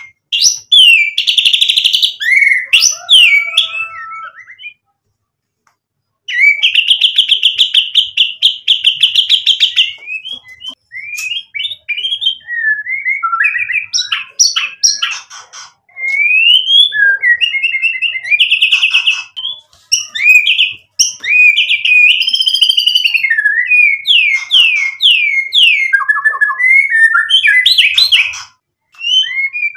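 Male white-rumped shama (murai batu) singing a long, varied song of loud whistled phrases, up-and-down glides and fast rattling trills, running through its repertoire of mimicked phrases. About five seconds in it breaks off for a second or so, then comes back with a long fast rattle that lasts about four seconds.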